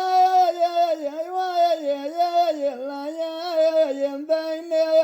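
A solo voice singing a Mehri folk song in the layleet style, unaccompanied: a continuous ornamented melodic line of long held notes that waver and glide between pitches.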